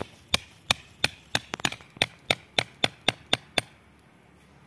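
Hammer striking the top of a flat steel blade to drive it into a thick Ficus microcarpa root and split it: a rapid run of about fourteen sharp metal-on-metal blows, roughly three a second, that stops about three and a half seconds in.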